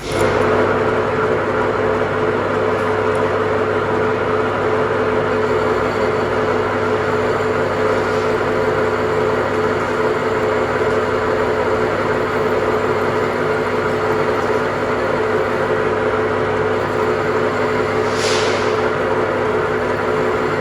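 A machine running at a steady, even speed with a constant hum, starting abruptly at the beginning. Near the end there is a brief high hiss.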